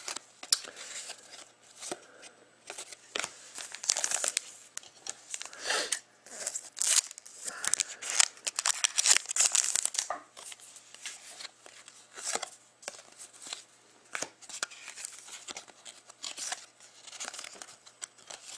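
Foil wrapper of a Panini Contenders hockey card pack being torn open and crinkled in irregular crackly bursts, loudest a few seconds in and again midway, as the cards are slid out and handled.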